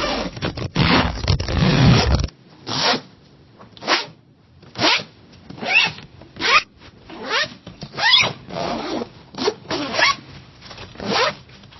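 Zipper being zipped: a denser run of zipping cuts off about two seconds in, then the zipper is pulled in about ten short separate strokes, roughly one a second, some rising in pitch.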